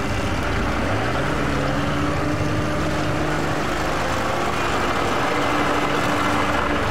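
Engine of a tracked Argo amphibious all-terrain vehicle, revving up about a second in and then held steady. It is working hard while the vehicle is stuck in deep snow.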